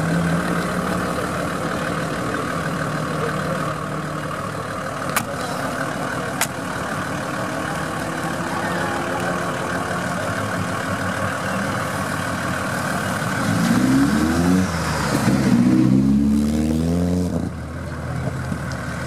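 An engine idles steadily, with two sharp clicks about a third of the way in. Then a rally car's engine revs hard in a series of rising sweeps as it accelerates up through the gears, and the sound drops off sharply near the end.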